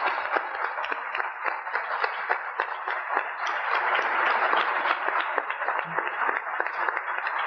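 An audience applauding steadily, many people clapping at once.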